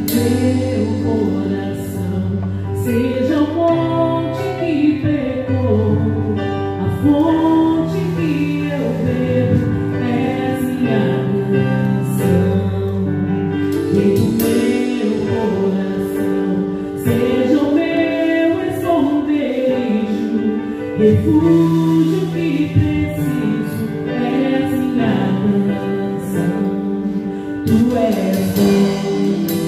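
Church worship band playing a slow gospel song: singing over held chords and low bass notes, with a few cymbal strikes from the drum kit.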